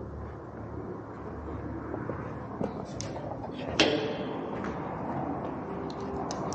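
Scattered clicks and knocks over a low steady rumble, with one sharp, loudest knock that rings briefly about four seconds in.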